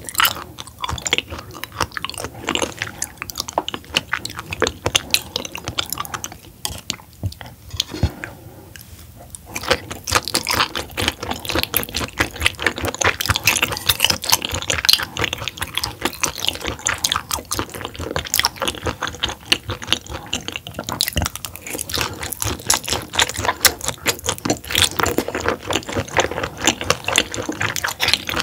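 Close-miked chewing of raw roughscale sole sashimi, a steady run of wet clicks and mouth noises; the chewing eases off for a few seconds about a quarter of the way in, then picks up again.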